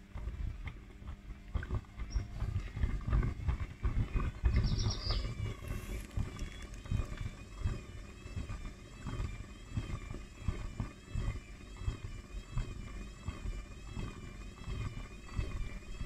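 Hotpoint front-loading washing machine running its spin cycle with its pressure switch removed, so the drum is full of water and suds: heavy, irregular churning and sloshing of water and foam. From about six seconds in, a high warbling whine rises and falls over and over above the sloshing.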